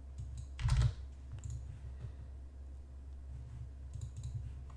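Computer mouse and keyboard clicks: scattered light clicks, with one louder knock just under a second in, over a steady low hum.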